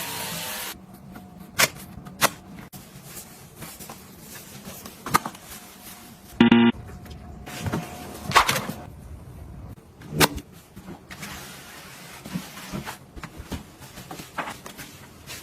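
Household objects being handled: scattered sharp clicks and taps, a brief pitched squeak about six and a half seconds in, and a stretch of soft hiss near the end.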